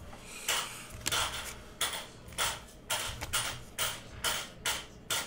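A stack of 2019 Panini Diamond Kings baseball cards being flicked through one at a time, each card giving a short crisp snap of card stock, about two a second.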